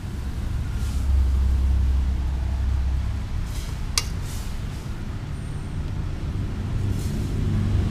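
A low steady rumble, with a metal spoon clinking once against an aluminium wok of noodles about four seconds in, and a few soft scrapes of the spoon.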